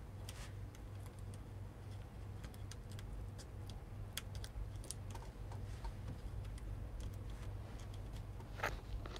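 Scattered light clicks and taps of small parts being handled on a laptop's bared motherboard, over a faint low steady hum.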